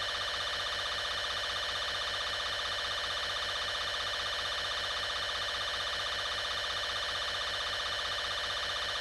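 Steady electronic warning drone made of several held tones sounding together, with a slight fast flutter and no change in level.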